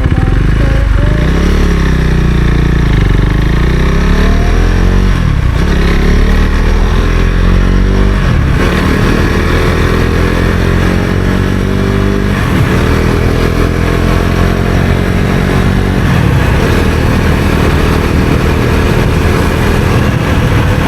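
Husqvarna Svartpilen 401's single-cylinder four-stroke engine under way, pulling through the gears. At each of several shifts a few seconds apart the pitch drops briefly, then climbs again.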